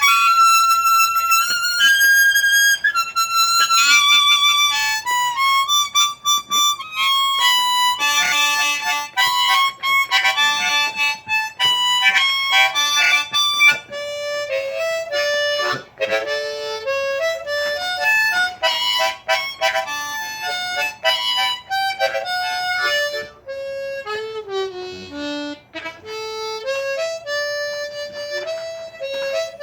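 Hohner Marine Band diatonic harmonica in D played in first position (straight harp) in a pre-war blues style. It starts on high held notes and works down to lower ones, with a few bent notes near the end.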